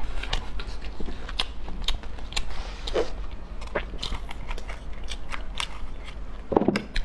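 Close-miked clicks, cracks and scraping as a cooked brown crab's shell is picked apart and scraped out with a small knife, mixed with chewing, with one louder knock near the end.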